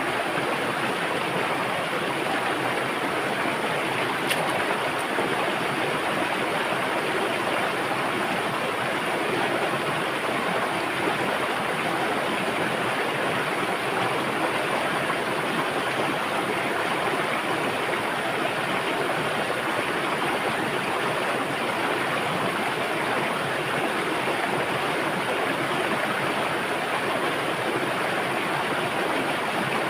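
River water rushing and splashing over rocks: a steady, even rush with no change.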